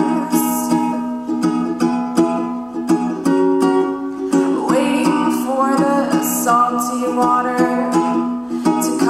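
Ukulele strummed in a steady rhythm while a woman sings along, holding long notes.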